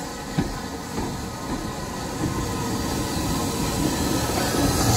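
Train running on the rails, growing steadily louder as it comes closer, with a sharp click less than half a second in.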